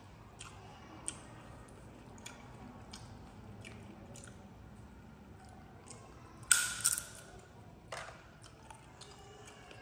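Young macaque biting into and chewing a guava: faint wet crunching and smacking, with two louder, sharper bites about two-thirds of the way through.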